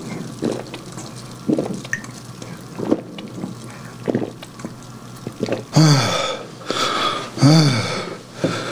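A man gulping carbonated cola from a plastic bottle, about one swallow a second for five swallows. He then lowers the bottle with two loud throaty vocal sounds from the fizz.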